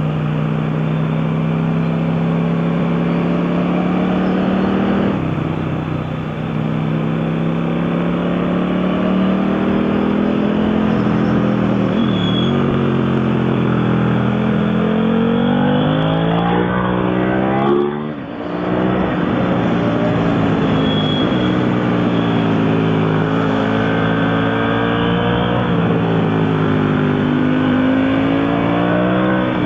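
Motorcycle engine running at road speed. Its note holds steady, then climbs and drops several times as the rider accelerates, changes gear and eases off, with a sharp dip in the engine note about eighteen seconds in before it builds again.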